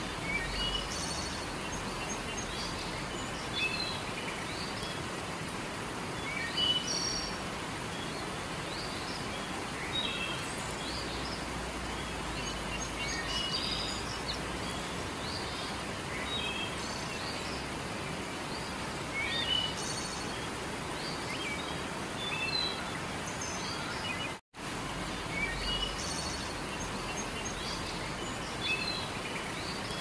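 Steady rush of a river flowing over rocks, with small birds giving repeated short, high chirps. The sound cuts out for an instant about three-quarters of the way through.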